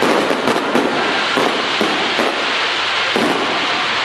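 Fireworks display: aerial shells bursting overhead in a rapid, irregular series of bangs, several a second, over a continuous crackle.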